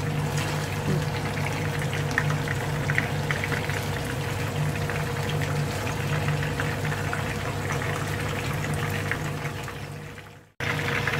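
Battered chicken pieces sizzling and crackling as they fry in hot oil in a pan, over a steady low hum. The sound fades away and cuts out for a moment near the end.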